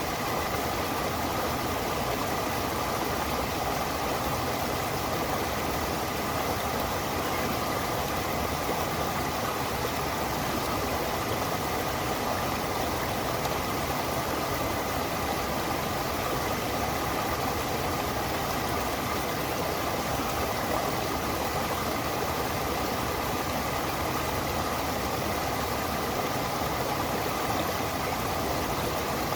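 Stream water flowing and splashing over rocks, a steady, unbroken rush.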